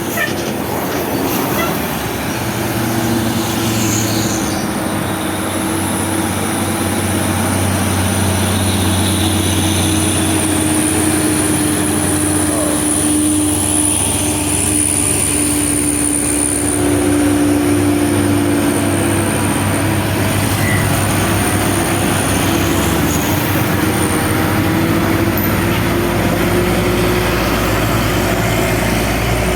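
Large vehicles passing close by: a loud, steady rumble of heavy engines, with a thin high whine over most of it.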